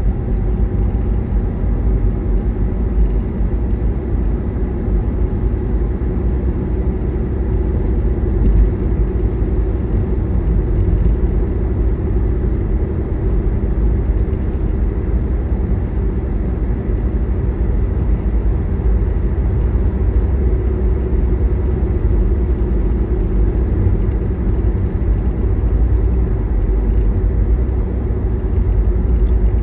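Steady low rumble of a car driving at road speed, heard from inside the cabin: tyre and road noise with the engine's drone underneath.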